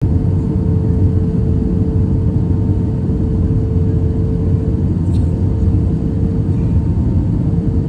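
Steady drone of an airliner's engines and rushing air heard inside the cabin on descent, with a steady hum tone running through it.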